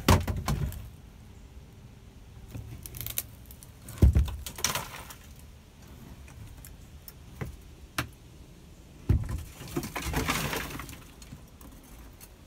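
Someone moving about and handling things inside a flood-damaged RV: a few sharp knocks and clatters with brief rustling and clinking between them. The loudest knock comes about four seconds in.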